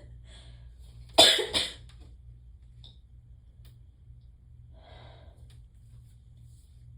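A woman coughs sharply, a double burst about half a second long, her nose and throat irritated by Chhinkni sneezing powder that is not bringing on a sneeze. A faint breath follows a few seconds later.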